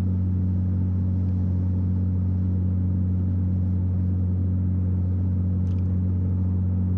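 Air-cooled flat-six engine of a 1964 Corvair Monza heard from inside the cabin while driving, a steady low drone with road noise.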